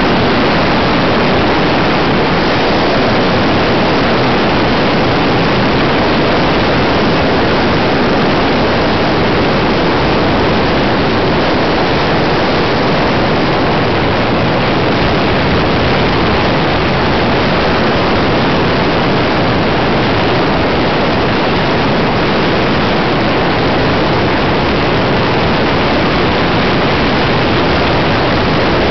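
Steady, loud rush of wind and tyre noise from a car driving at road speed, heard from inside the moving car.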